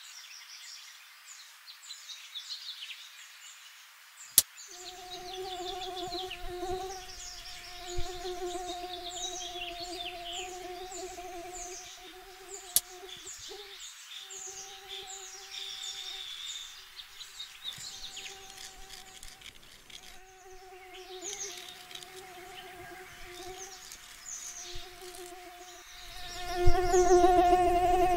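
Forest ambience of high bird and insect chirps, with a flying insect's steady buzz that comes in about five seconds in, breaks off now and then, and grows much louder near the end. Two sharp clicks stand out, one early and one near the middle.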